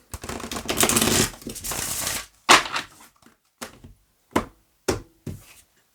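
A deck of tarot cards being shuffled with a dense rustle for about two seconds, then about five sharp slaps as cards are dealt down one by one.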